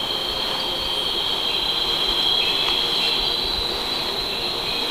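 Steady chorus of night insects calling: a continuous high-pitched drone on two close pitches, held without a break.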